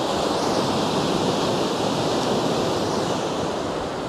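Sea surf from a gentle swell washing over a rocky shore: a steady rush of water that builds a little in the first half and eases toward the end.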